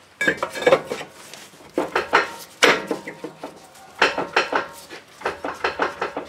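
Rear brake rotor being pushed by hand over the hub studs and the parking brake shoes, clattering and scraping metal on metal in four short bouts.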